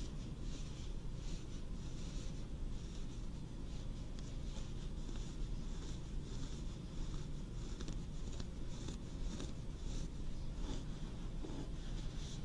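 Hands rubbing close to a binaural microphone as a role-played shoulder massage: irregular short scratchy strokes, a few a second, over a steady low rumble.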